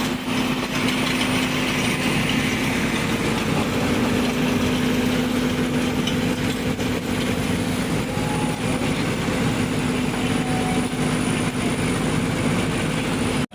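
An engine or motor running steadily with a constant low hum, cutting off abruptly at the very end.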